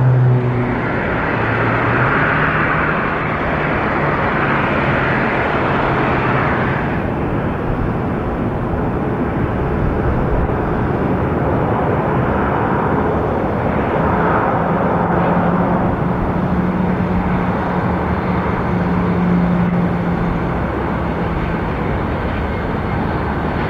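The climbing Beechcraft Super King Air 200's twin turboprops fade at the start. After that, a Boeing 737-700's CFM56-7B jet engines at takeoff power give a steady noise through its takeoff roll and liftoff, with a low hum through the middle.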